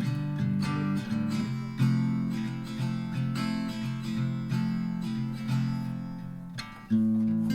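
Background music: an indie-rock instrumental led by strummed acoustic guitar.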